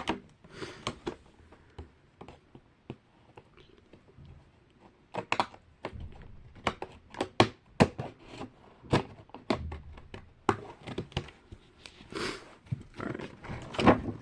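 Scissors and plastic packaging being worked open by hand: irregular sharp clicks, snips and crinkles, quieter for a few seconds early on, with a longer rustle near the end as the package comes open.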